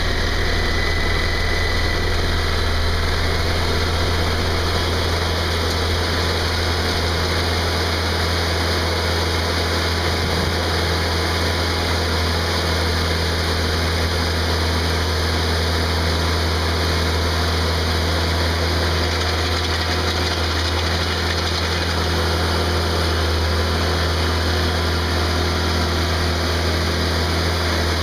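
Engine of a Ditch Witch 8020 plow/trencher/backhoe running steadily at idle, with a deep, even drone.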